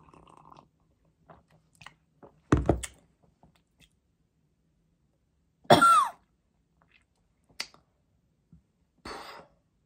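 A young woman coughing and clearing her throat after swallowing a sip of a foul-tasting mixture of grape juice, salt, mustard and honey. Three short outbursts come about two and a half, six and nine seconds in; the middle one is a brief vocal sound that falls sharply in pitch.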